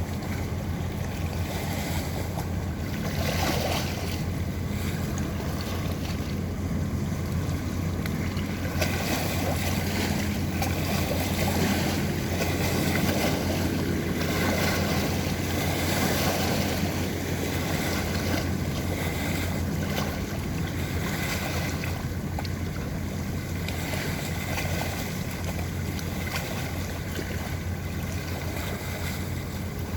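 A boat's engine droning steadily as it passes on the river, over the rush of water and wind on the microphone, a little louder around the middle.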